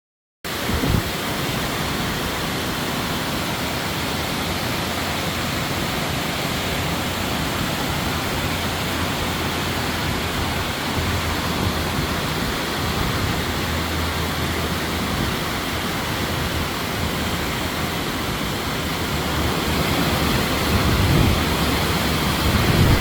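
Waterfall rushing: a steady, even wash of falling water that cuts in suddenly about half a second in and holds at one level throughout.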